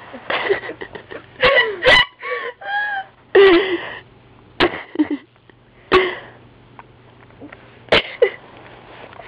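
Short bursts of stifled, breathy laughter from people close to the microphone, a few of them high and squeaky, with quiet gaps between.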